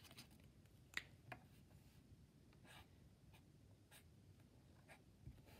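Faint scratching of a pen or pencil writing on paper: a few short, spaced-out strokes.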